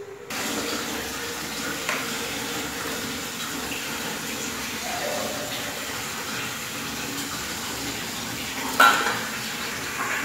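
Steady hiss of chopped saag greens cooking in a metal kadai on a gas stove, with one sharp clank about nine seconds in.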